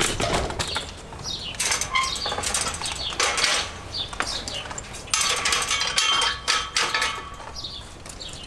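Chain-link fence rattling and jangling as it is gripped and shaken, in several bouts, loudest about five to seven seconds in.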